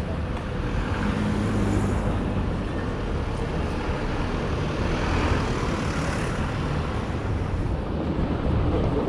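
City street traffic: a steady rumble of passing cars, with one vehicle swelling past about five seconds in.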